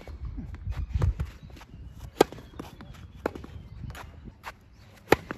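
Tennis ball being struck by rackets and bouncing on a hard court during a rally. The sharp pops are spaced a second or more apart; the loudest come about two seconds in and just before the end.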